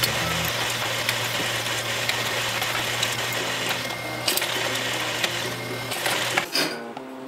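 Drill press running with a twist bit cutting into steel square tubing: a steady motor hum under the scraping noise of the cut. The drilling noise cuts off about six and a half seconds in.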